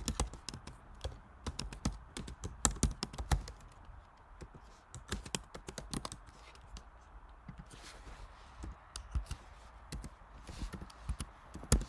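Typing on a computer keyboard: irregular keystrokes with short pauses, and one louder click near the end.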